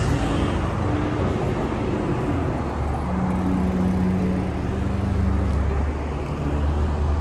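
Steady road traffic: a low rumble of car engines and tyres, with a deeper engine hum that grows stronger for a second or two partway through.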